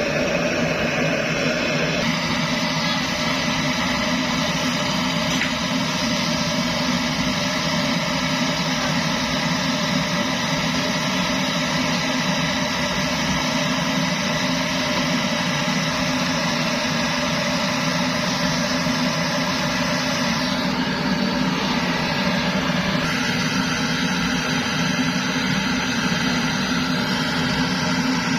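Kerosene pressure stove (primus) burning steadily, a constant rushing noise that holds the same level throughout.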